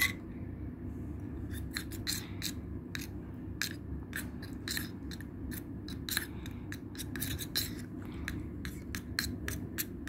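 Metal spoon stirring thick slime in a glass tumbler, clinking and scraping against the glass in quick irregular strokes, a few a second, with a sharp knock at the start.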